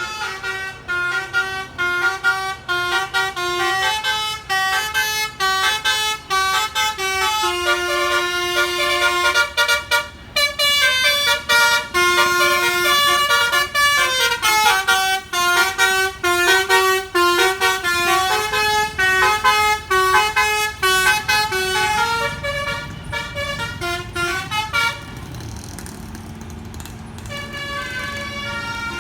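Bus telolet basuri horn playing a fast melody of stepped, pitched notes. Near the end the horn stops for a couple of seconds, leaving the low rumble of the bus, then starts again.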